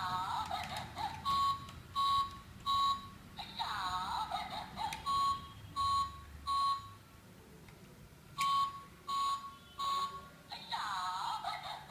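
LEGO Mindstorms EV3 brick's speaker sounding its anti-theft alarm. A downward-swooping tone is followed by a run of short, evenly spaced electronic beeps, about two a second, and the pattern repeats. The beeps stop for about a second past the middle.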